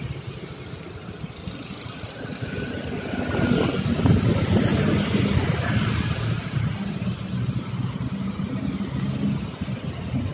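Busy street traffic: motor scooters and cars running past close by, their engines swelling loudest about four seconds in as scooters go by.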